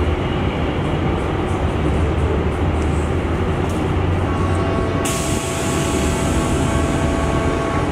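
A steady low mechanical rumble. About four seconds in, a faint steady whine joins it, and about a second later a hiss starts suddenly.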